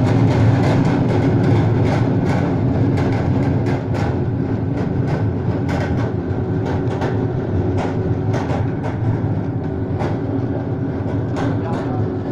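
Grimme Rexor 620 sugar beet harvester running while unloading: a steady machine drone, with irregular knocks and clatter of beets tumbling off the discharge elevator into the trailer.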